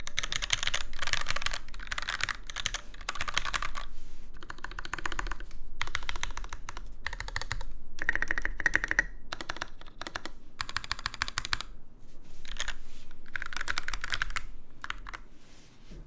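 Typing on a Novel Keys NK65 Entry Edition mechanical keyboard, which has Gateron Yellow linear switches lightly lubed with Krytox 205g0 and Taihao OEM-profile keycaps. The keys are struck in fast runs of a second or two, with short pauses between.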